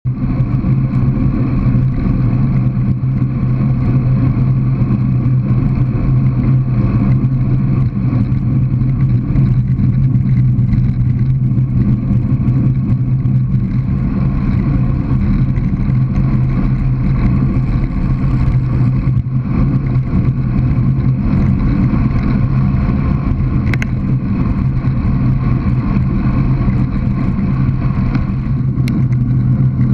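Steady rumble of wind and road noise on a GoPro camera moving along a country lane, with a constant low hum and no break.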